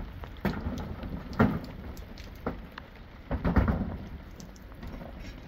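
Rain falling, with irregular heavier thuds and knocks, the loudest about one and a half and three and a half seconds in.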